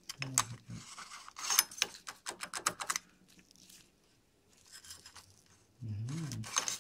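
Clicking and scraping of the oily internal parts of a NuVinci CVT bicycle hub being handled and shifted by gloved hands: a quick run of sharp clicks for about three seconds, then a few faint ones. A short hummed voice sound near the end.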